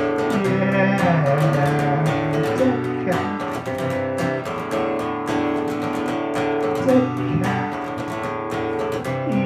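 Acoustic guitar strummed in a steady rhythm, with held notes sliding between pitches over the strumming. An instrumental passage with no singing.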